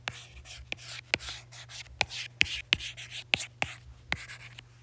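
Stylus tip tapping and sliding on an iPad's glass screen while drawing fluffy strokes: sharp clicks about twice a second as the tip touches down, each followed by a short scratchy hiss as it drags. A steady low hum runs underneath.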